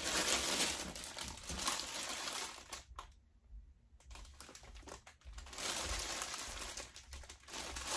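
Plastic packaging crinkling as an item is handled and unwrapped, in two stretches with a brief pause about three seconds in.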